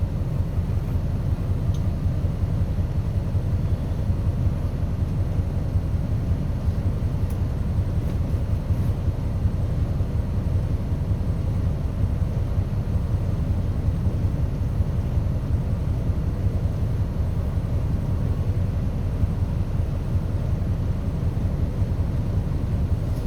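Steady low rumble of a bus running, heard from inside the cabin.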